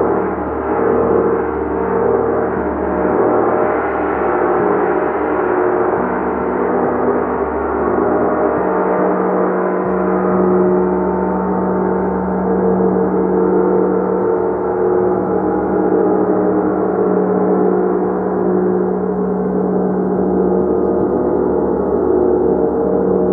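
Gong played in a continuous, steady wash of many overlapping sustained tones, with no single strike standing out.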